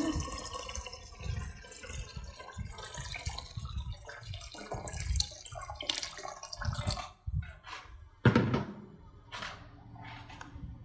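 Water poured in a thin stream into a rice cooker's nonstick metal inner pot, splashing and trickling, then stopping about seven seconds in. A few short separate sounds follow, the loudest about eight seconds in.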